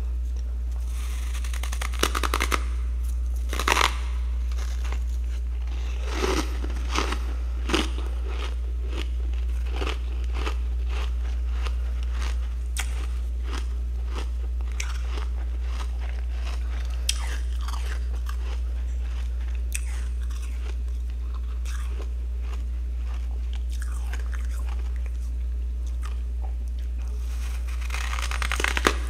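Chunks of freezer frost being bitten and chewed: repeated crunching, with several louder bites in the first eight seconds and another near the end, over a steady low hum.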